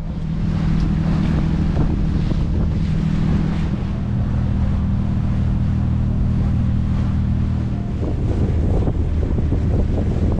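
Nordhavn 55 trawler's diesel engine running with a steady low drone while underway, with wind buffeting the microphone and water rushing along the hull.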